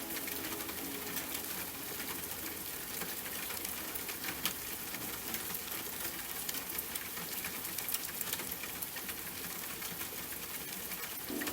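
Steady rain pattering, with many separate drop ticks over an even hiss.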